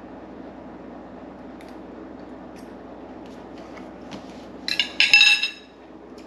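Steady low room hum, then about four and a half seconds in a metal fork is set down on a china plate with a bright, ringing clink.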